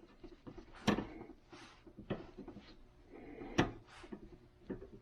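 Objects being handled on a reloading bench: scattered small knocks and rustles, with two sharper clacks about a second in and again near three and a half seconds.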